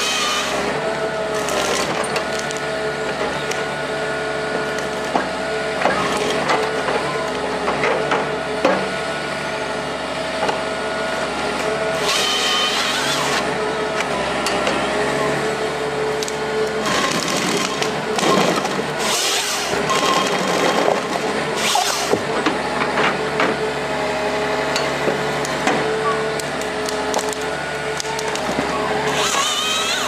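Komatsu forest harvester's engine and hydraulics running steadily with a constant whine, while its harvester head grips and processes a snowy conifer: wood cracking and branches splintering in bursts, clearest about twelve seconds in and again between about seventeen and twenty-two seconds.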